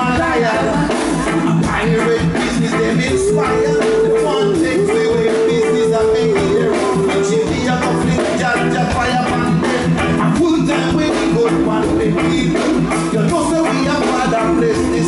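Live reggae: a group of singers singing together into microphones over a backing band playing a steady beat.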